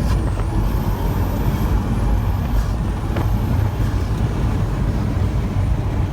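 Pagani Huayra's twin-turbo V12 running hard under acceleration, a dense low rumble with a thin high turbo whistle that rises and falls over the first four seconds.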